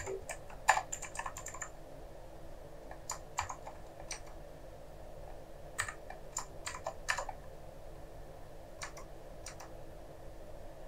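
Typing on a computer keyboard: short bursts of keystroke clicks with pauses between, busiest in the first two seconds and again around six to seven seconds in.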